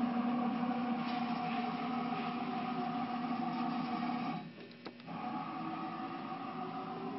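2008 Clausing CNC lathe running under power with a steady machine whine as the carriage and turret traverse the bed. About four and a half seconds in the whine drops out briefly with a click, then starts again at a different pitch.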